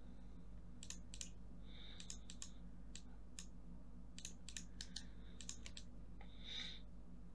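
Scattered sharp clicks of a computer mouse and keyboard, several in quick pairs or clusters, over a faint steady low electrical hum.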